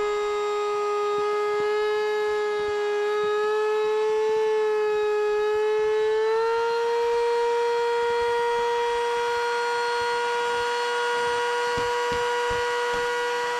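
Electric high-pressure air pump inflating an inflatable boat, running with a steady high whine. Its pitch creeps up, steps up about six seconds in, then holds level.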